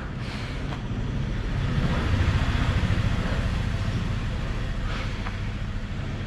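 A motor vehicle running close by. Its low rumble swells to a peak about two seconds in and then slowly eases off, with a few brief clicks.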